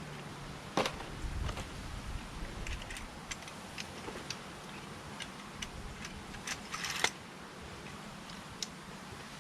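Scattered sharp clicks and knocks of a tripod being handled, the loudest about a second in and about seven seconds in, over a steady low hum.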